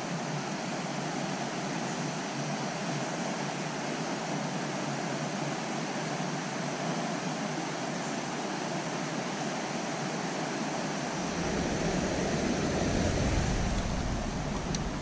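Steady rush of flowing creek water. About eleven seconds in, a low rumble on the microphone joins it.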